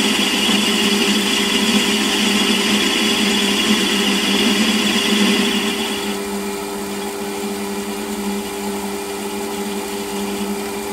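Metal lathe running while a turning tool takes a light 3 thou cut on a model engine cylinder, giving a steady hum. A higher-pitched part of the sound stops about six seconds in, leaving the lathe's hum.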